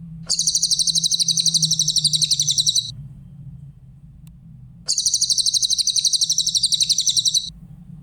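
Cililin bird singing two fast trilled phrases of rapidly repeated high notes, each about two and a half seconds long, with a pause of about two seconds between them. A steady low hum runs underneath.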